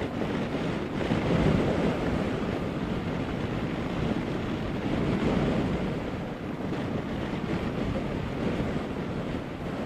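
Wind rushing over a GoPro mounted on the chin bar of a motorcycle helmet while riding in a gusty wind. A steady, deep rush of wind noise that swells and eases a little.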